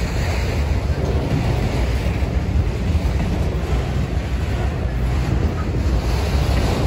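Freight train of autorack cars rolling past close by: a steady, even rumble of wheels on rail, with wind buffeting the microphone.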